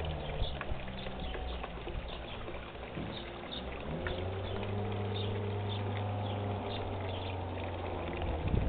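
Small fountain jet in a garden fish pond splashing and trickling, over a low steady hum that grows stronger in the middle.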